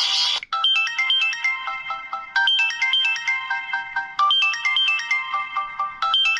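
Samsung Admire phone playing one of its built-in ringtones: a short electronic melody of chiming notes, its phrase repeating about every two seconds. The previous, noisier ringtone cuts off about half a second in, just before this one starts.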